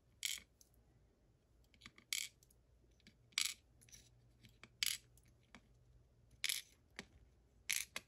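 Small metal parts of a Lucznik E8 lock cylinder clinking against a metal pin tray as they are handled and set down: six sharp clicks, one every second or so.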